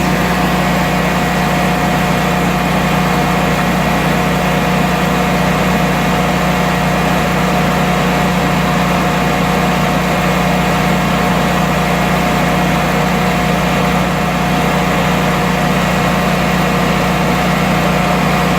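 Generac 22 kW home standby generator's V-twin engine running at a steady governed speed, a constant even hum with no change in pitch.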